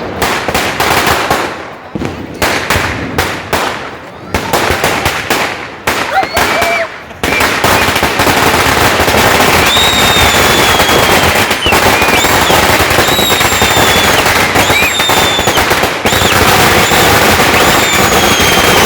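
Diwali firecrackers going off: scattered sharp cracks and bangs, then from about seven seconds in a dense, unbroken rapid-fire crackle like a long string of crackers, with short high whistles gliding over it.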